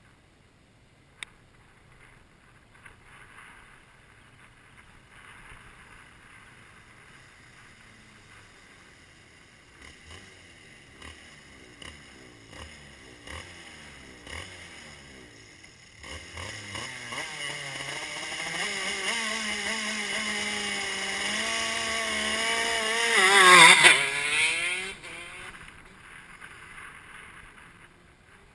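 Shifter kart's two-stroke engine at high revs, approaching from far off and growing louder with rising pitch, passing close by about 23 seconds in with a sudden drop in pitch, then fading away.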